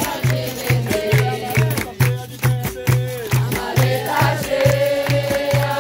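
Capoeira roda music: berimbaus and an atabaque drum playing a steady beat under hand claps, with a group singing a call-and-response capoeira song.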